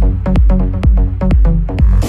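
Progressive electro house DJ mix: a steady four-on-the-floor kick drum at about two beats a second over a heavy bass line and synth chords. A burst of noise like a crash or riser comes in at the very end.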